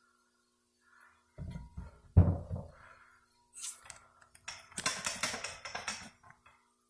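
Handling noise: a few low thumps with one sharp knock about two seconds in, then several seconds of clattering and rubbing as the camera is grabbed and moved.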